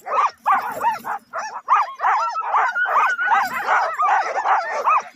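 A team of Alaskan sled huskies barking and yipping, several dogs at once in rapid, overlapping calls several times a second.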